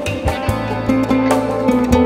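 Flamenco-style playing on a nylon-string classical guitar: rapid plucked notes over held low bass notes.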